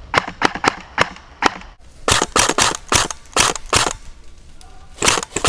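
Airsoft rifle firing single shots in quick succession: about five sharp cracks in the first second and a half, then a faster string of about eight heavier shots, and two more near the end.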